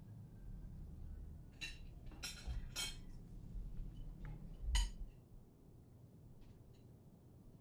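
Tableware clinking at a meal: a spoon and bowls knocking on a dining table, with four sharp clinks in the first five seconds, then a few faint ticks.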